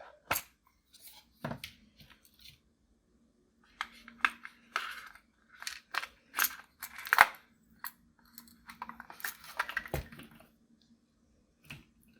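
Clear slime being worked by hand with crumbled eyeshadow mixed in: irregular sticky clicks, crackles and short squelches, the loudest about seven seconds in.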